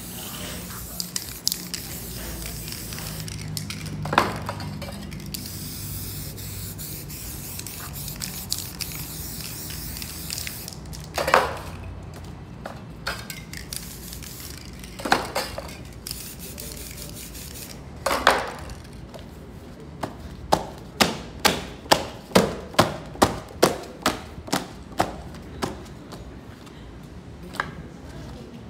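Aerosol spray-paint can hissing in spurts as paint is sprayed onto a canvas. A few sharp knocks are scattered through the first part, and in the second half there is a quick even run of sharp clacks, about two a second.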